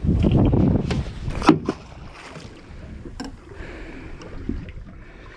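Low rumbling noise aboard a small boat at sea, loud for the first couple of seconds and then quieter, with a few sharp knocks.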